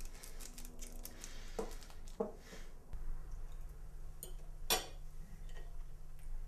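A candy wrapper crinkling briefly with a couple of soft knocks, then cutlery clinking lightly on dinner plates, with one sharper clink about three-quarters of the way through.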